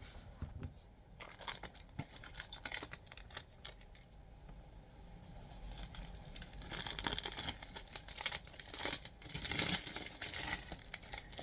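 Plastic shrink wrap being picked at, crinkled and torn off a boxed 4K Blu-ray release, in irregular crackly bursts that grow busier about halfway through.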